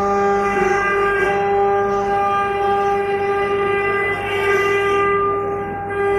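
CNC stone engraving machine running with a steady, unbroken whine of one pitch with overtones, with no clear change in pitch or level.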